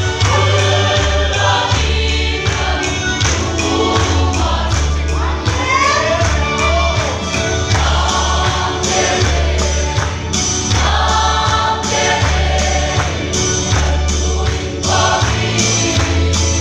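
A group of men and women singing together in chorus, with a large barrel drum keeping a steady beat under the song.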